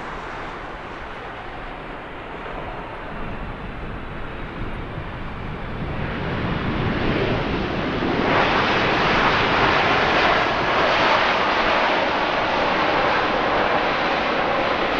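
Jet airliner engines, a steady noise that grows louder from about six seconds in and stays loud for the rest.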